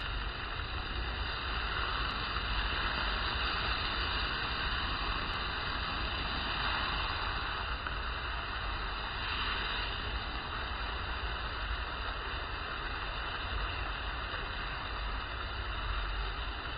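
Large open flames burning under a beef steak on a grill: a steady rushing noise with a low rumble underneath.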